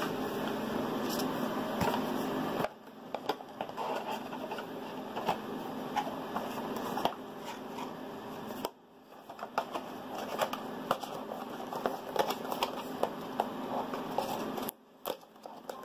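Steady background hiss with scattered small clicks and rustles. It drops away briefly three times, about 3, 9 and 15 seconds in.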